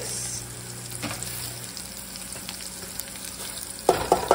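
Green pepper strips sizzling in oil in a frying pan. Near the end come several sharp knocks and taps as rice is tipped from a plastic measuring cup into a pot of boiling water.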